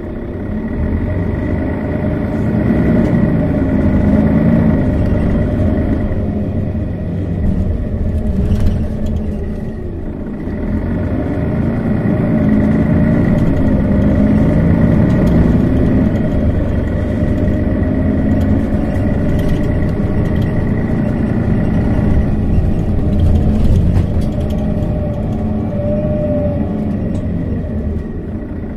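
Setra S415 NF bus's diesel engine running under way, its pitch rising and falling several times as the bus accelerates and eases off, with a steady high whine over it.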